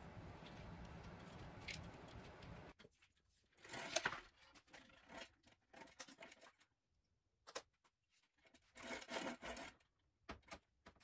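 Faint handling noises: short bursts of rustling and rubbing with a few light clicks as the scooter's frame, throttle and wiring are handled. A steady low hum stops abruptly about three seconds in.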